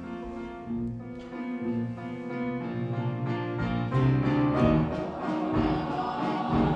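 Instrumental music from a stage musical's band, with no singing, swelling steadily in loudness, with low thuds on the beat coming in about halfway through.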